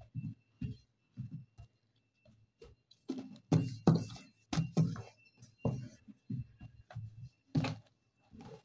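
Hands lifting, folding and pressing a sheet of rolled half-cake dough on a table: irregular dull thumps and pats, about two a second, with a short pause around two seconds in.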